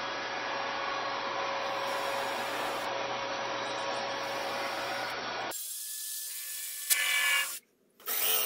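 Electric power tool running steadily, a whine over a hiss, that stops abruptly about five and a half seconds in. A shorter burst of similar noise follows about a second later, and another loud sound starts near the end.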